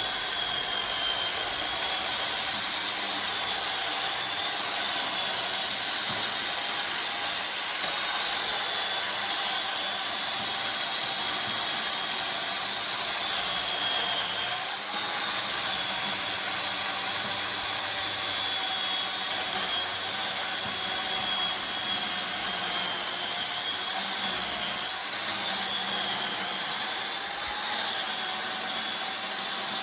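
A power tool's motor running steadily for the whole stretch, with a high whine whose pitch dips and wavers slightly, as if under changing load while working wood.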